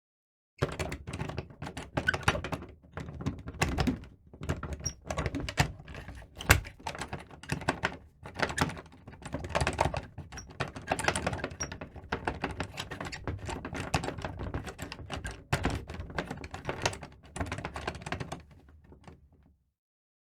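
A door knob rattled and jiggled in its latch, making rapid metallic clicks and knocks in irregular bursts, with a few sharper knocks.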